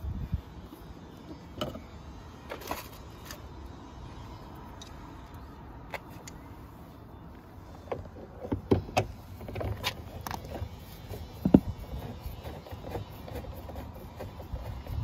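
Screwdriver working the screws of a VW Golf Mk6's plastic door card, with scattered clicks and knocks of tool on plastic trim. They come more often in the second half, and the sharpest knock falls about three-quarters through.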